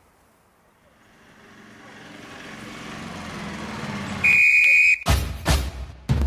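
A two-wheel walking tractor's engine running, growing steadily louder over a few seconds. Then there is a short, loud, high-pitched beep, and a drum beat starts about five seconds in.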